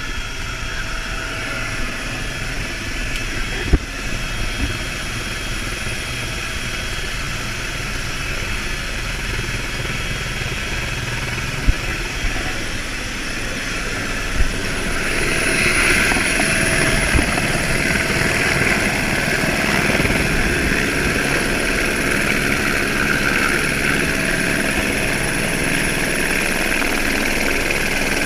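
Helicopter turbine and rotor noise heard from inside the cabin: a steady drone that grows louder about halfway through, with a few sharp knocks.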